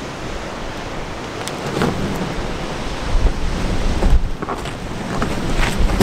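Strong wind buffeting the microphone: a steady rushing with low rumbling, swelling in gusts about three and four seconds in.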